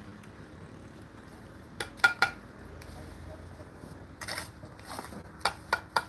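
Bricklaying: sharp clinking taps of a steel trowel against bricks and mortar, three quick taps about two seconds in and three more near the end.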